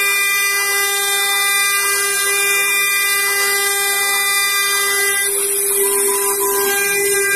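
Cast-iron CNC-4040 milling machine cutting aluminium with an end mill along a spiral path. The spindle gives a loud, steady whine with several overtones, and a fainter tone sweeps up and down over and over beneath it.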